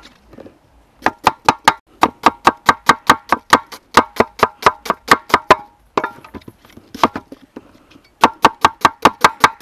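Cleaver chopping red onions on a wooden cutting board set in an aluminium basin: rapid sharp strikes, about five a second, each ringing briefly. The strikes come in two fast runs, with a pause and a couple of single strikes between them.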